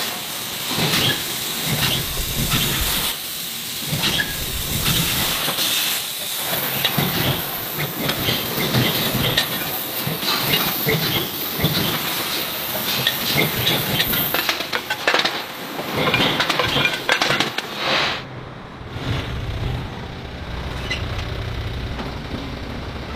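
Factory noise of a hot-forging press line: a steady hiss with many short metal clanks and knocks. About eighteen seconds in, the hiss and clanks give way to a lower, steadier machine hum.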